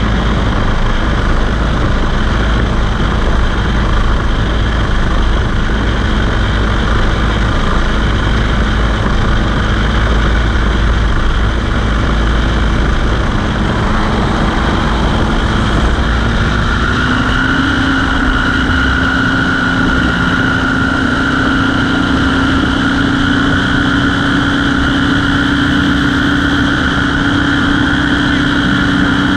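Small aircraft engine running steadily with propeller and wind noise, its pitch stepping up about halfway through as power is added.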